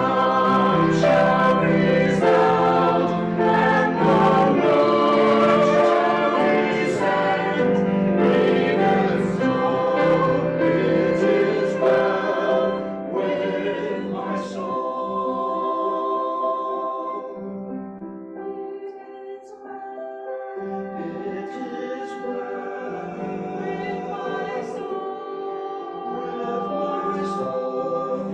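A small mixed vocal ensemble of men and women singing a sacred choral piece, with sustained sung notes; the singing softens to a quieter passage about two-thirds of the way through, then builds again.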